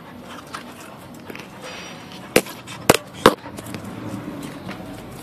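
Handling noise from a handheld camera as a dog brushes against it: three sharp knocks in quick succession, about half a second apart, over faint rustling.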